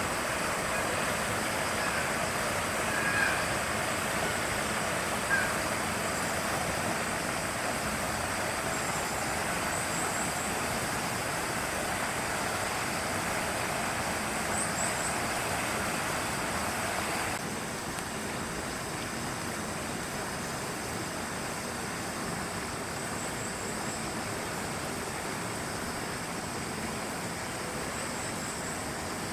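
Steady rain falling, an even hiss that drops a little about two thirds of the way through. Faint, short high chirps come now and then.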